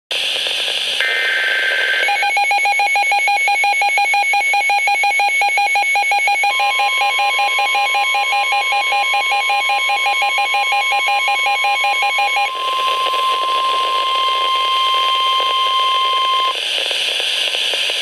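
Weather radio alert: after a second of static hiss comes a one-second burst of the digital header tones. The receiver then starts a rapid beeping alarm, and about four seconds later the steady 1050 Hz NOAA Weather Radio warning tone joins it. The beeping stops about 12 seconds in, the warning tone cuts off a few seconds later, and the radio returns to static hiss, signalling an incoming severe thunderstorm warning.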